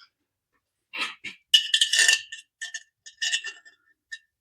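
Irregular light metal-on-metal taps and clinks with a short metallic ring, as a steel carriage bolt is tapped through a hole in the air horn bracket's tube.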